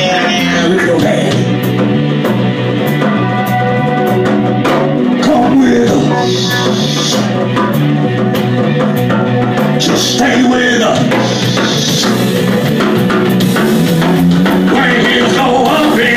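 Live band music: a drum kit keeps time with cymbal hits over a low line that steps from note to note.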